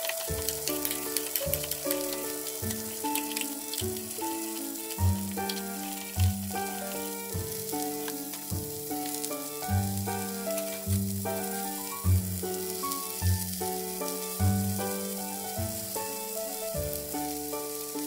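Pork-wrapped rolls sizzling and crackling in hot oil in a frying pan, with background music playing over it.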